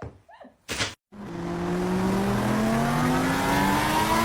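A car engine accelerating, cutting in suddenly about a second in. Its pitch climbs steadily over a rushing noise.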